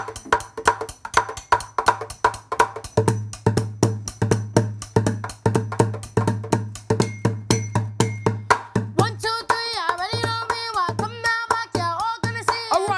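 Fast, even bucket drumming with sticks on plastic buckets. About three seconds in, a steady low bass tone joins the drumming, and from about nine seconds in a voice sings over it.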